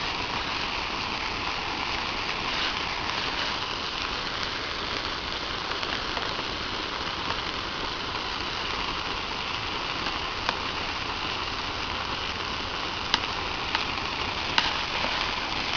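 Bonfire of a burning mattress: a steady hiss of flames with a few sharp crackling pops, most of them in the last few seconds.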